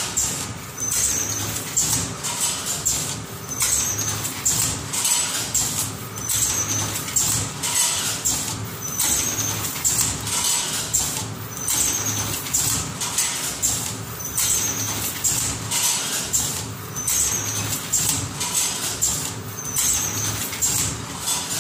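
Wolfberry counting and bagging machine running. It goes in a repeating cycle every second or two, with short high-pitched blips over clicking and hissing.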